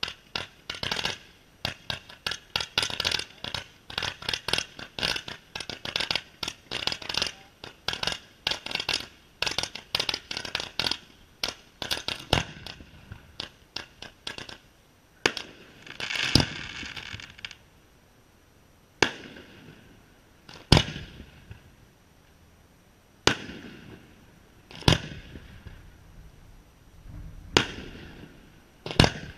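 Aerial fireworks going off: a fast run of cracks and bangs, many a second, for about the first half, then single loud shell bursts every second or two, one followed by a short crackle.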